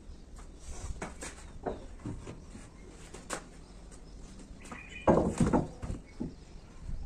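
Bamboo and wooden poles knocking and clattering against a concrete parapet wall as they are lifted and laid in place, with the slap of sandal footsteps on the concrete roof. A few scattered knocks, then the loudest clatter of several knocks about five seconds in.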